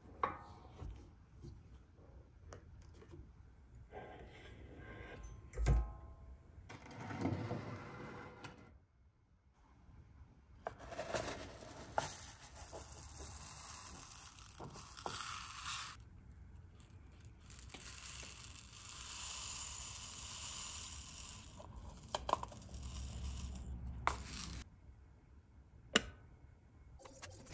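Small plastic resin pellets being scooped and poured into a glass, a rattling hiss heard in two long stretches, after scraping and a thump from clamping the mold in the machine's vise. A sharp click near the end from the injection machine's rocker switch being pressed.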